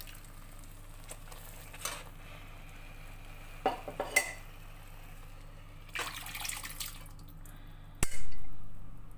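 A steel ladle clinks a few times against a steel pressure cooker and a cooking pan, then boiled black-eyed peas in their cooking water slide and splash out of the tipped cooker into the pan. A sharp metal knock about eight seconds in, dying away over about a second, is the loudest sound.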